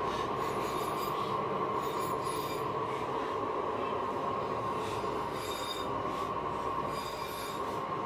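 A forge running: a steady rushing noise with a continuous whine in it.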